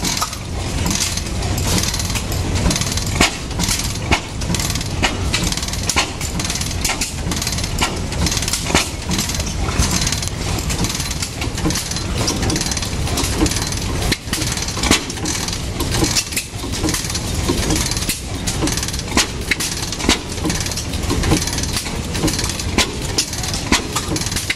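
Restored Reid two-stroke oil-field engine chugging along, its sharp exhaust beats repeating at a slow, even pace over a steady low rumble.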